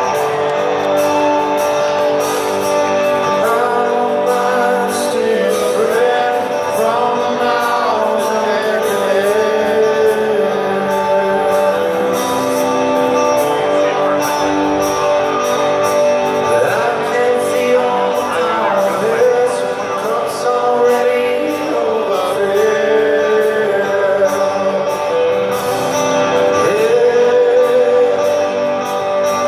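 Live rock band playing in a large arena: electric guitars and a man singing the melody, with the hall's echo.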